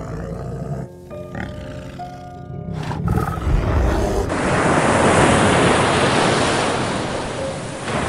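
Brown bear growling low, then a loud, rough roar from about four seconds in, over soft background music.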